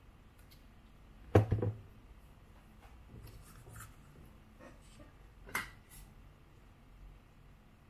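Handling noises from small plastic model-train parts on a work mat: a sharp clack about a second and a half in, a few light taps, then another click shortly after five seconds.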